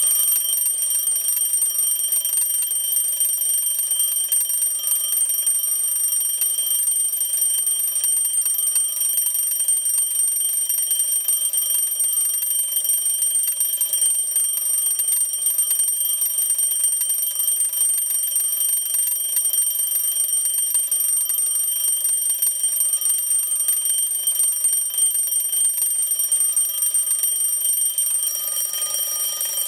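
A RHYTHM retro-style bell alarm clock ringing, its hammer striking the metal bell rapidly in a steady, unbroken clangour with bright high ringing tones.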